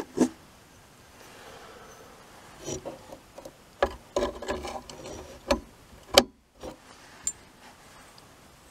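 Irregular clicks and light knocks as radio valves are worked in and out of their valve bases on the chassis, several in a row near the middle.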